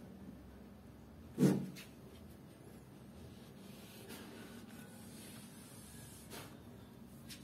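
Handling noise from the headset and stand: one dull knock about a second and a half in, then faint rubbing and a couple of light clicks near the end, over a faint steady hum.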